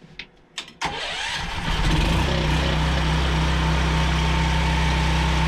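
DuroMax XP4850EH portable generator engine starting: a few clicks, then it starts up about a second in and settles into a loud, steady run.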